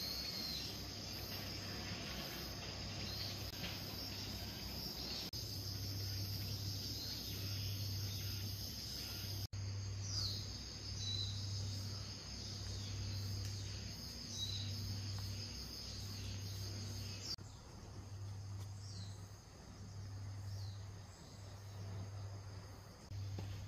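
A steady, high-pitched chorus of insects, with a few short falling bird chirps. A low throb pulses about once a second underneath. The insect sound drops away sharply about two-thirds of the way through.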